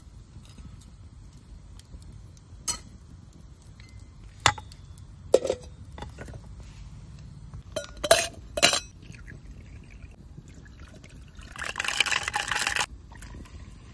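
Several sharp clinks of ice against a thin-walled glass, one of them ringing briefly, then about a second of liquid pouring into the iced glass near the end.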